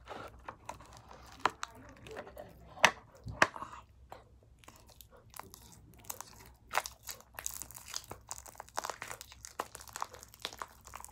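Sticky shaving-cream-and-gum slime being squeezed and stretched by hand, giving irregular crackling clicks and pops that come thicker in the second half.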